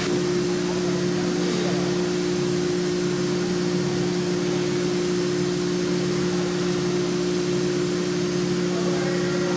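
3-axis CNC milling machining center running, a steady hum in two low pitches.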